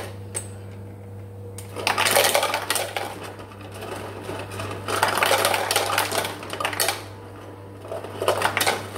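Refrigerator door ice dispenser running, ice cubes clattering down into a plastic cup in three bursts, over a steady low hum.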